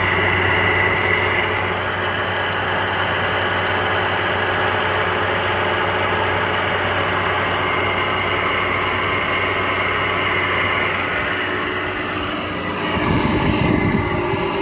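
Air conditioner running on a Welling fan motor whose bearing is shot: a steady hum with several steady tones on top, a sound the owner calls awful. About 13 seconds in, a louder, rougher low rumble sets in.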